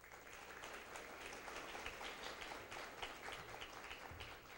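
Audience applauding: many hands clapping together, thinning out near the end.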